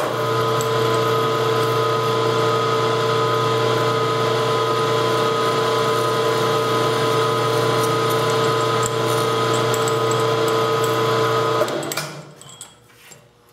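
Milling machine spindle running steadily, a drill bit cutting a hole in a metal bar, with a low hum and a few steady tones; it winds down about twelve seconds in as the hole is finished.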